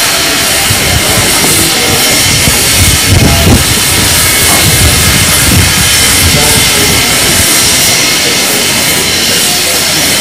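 GWR 2-8-0 steam locomotive No. 3850 hissing steadily with escaping steam as it is turned on a railway turntable, with some low rumbling about three seconds in.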